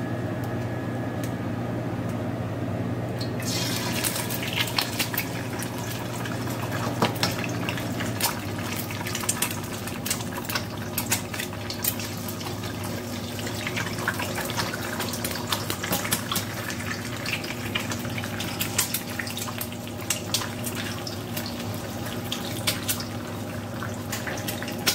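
Eggs frying in hot oil in a stainless-steel wok: a dense, crackling sizzle full of sharp spattering pops that starts a few seconds in, when the first egg goes into the oil. A steady low hum runs underneath.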